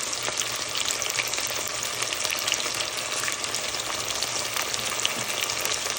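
Chopped onion, garlic, tomato, hot pepper, green seasoning and scallion sizzling steadily in hot oil in a pot, with many small crackles and pops.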